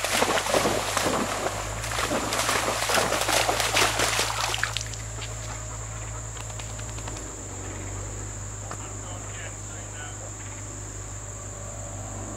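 A dog splashing as it runs through a shallow creek for about the first five seconds, then only a steady high-pitched insect buzz, with crickets, over the quiet creek.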